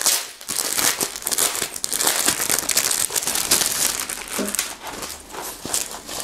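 Clear plastic packaging bag crinkling in the hands as a shirt is pulled out of it and unfolded: an irregular, continuous run of crackles.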